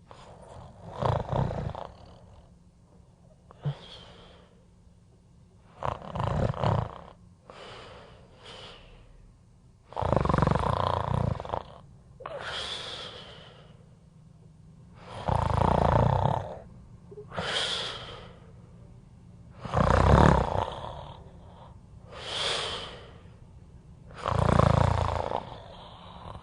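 A person snoring: six loud snores at a slow, even pace, roughly every four to five seconds, each followed by a softer breath out.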